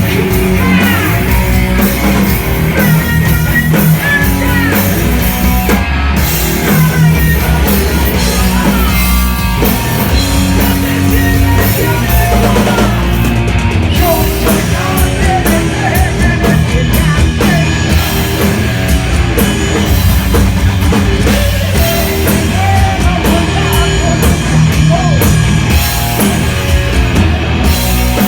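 Loud heavy metal music: a rock band with electric guitars and a drum kit playing.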